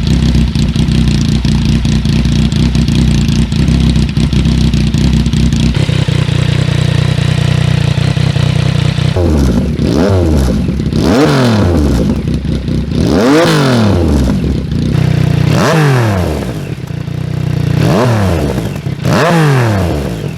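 Yamaha MT-09's inline three-cylinder engine through an aftermarket exhaust, idling steadily, then blipped in about five quick revs that rise and fall back to idle.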